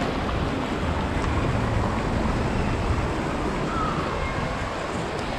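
Steady rush of water from fountain jets and splashing in a shallow fountain pool, with wind rumbling on the microphone.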